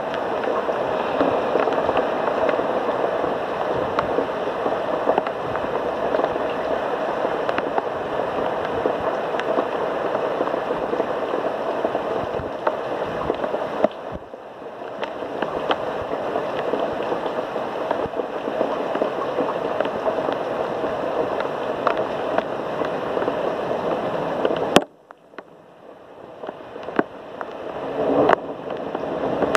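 Heavy thunderstorm rain pouring steadily, a dense hiss scattered with the ticks of drops hitting surfaces. The rain dips briefly about halfway through. Near the end it cuts off abruptly after a sharp click, then slowly builds again.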